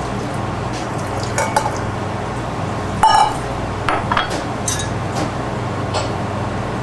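Several separate clinks and knocks as a stainless steel bowl, a glass measuring jug and a saucepan are handled and set down on a stone worktop. The loudest clink, about three seconds in, rings briefly. A steady low hum runs underneath.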